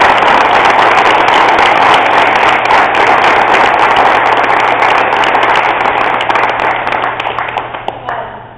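Audience applauding, loud and dense, dying away near the end.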